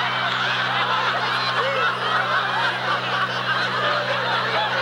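Audience laughing, many voices together, sustained through the pause after a punchline, over a steady low hum.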